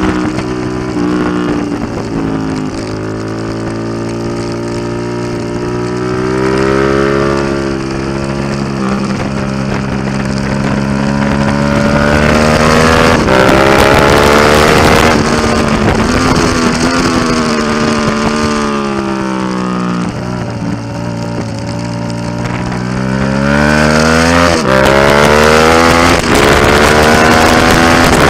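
Suzuki SV650's V-twin engine through an aftermarket Delkevic exhaust, heard on board at track speed with wind rush: the revs drop and climb several times, with a sudden gear change about three-quarters through and the loudest hard acceleration near the end.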